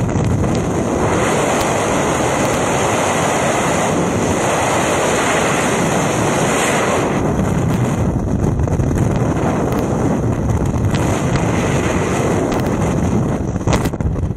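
Freefall airflow rushing over the camera's microphone: a loud, steady wind roar. It thins about halfway through, and near the end it breaks up as the parachute opens.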